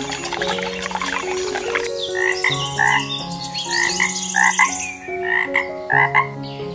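A frog croaking, a run of about eight short croaks, several in quick pairs, starting about two seconds in, over steady background music. Water is pouring at the start and stops about two seconds in.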